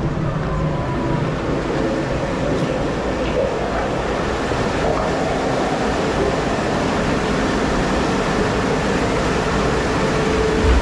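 Steady rushing rumble of a log flume boat on the move through the ride's channel.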